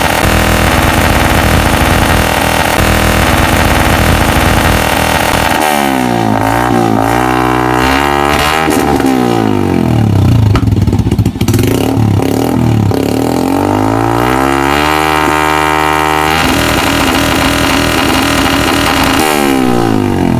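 Suzuki Smash 115 single-cylinder four-stroke engine running through an aftermarket AUN-style open exhaust pipe: it idles steadily for about five seconds, then is revved up and let back down several times, the pitch climbing and falling with each blip, with a short steadier stretch before one last rev near the end.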